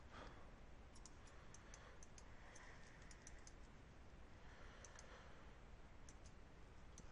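Faint, irregular clicks of a computer mouse and keyboard over a low microphone hiss.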